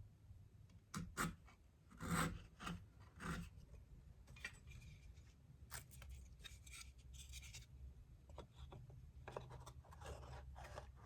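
Elm box parts being handled and set together: a few light wooden knocks in the first few seconds, then soft scraping and rubbing of wood on wood.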